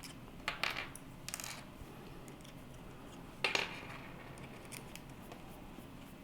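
Small metal clicks and clinks from changing the collet of a micro rotary hand tool with its wrench. A few light clicks come about half a second to a second and a half in, and one louder clink comes about three and a half seconds in.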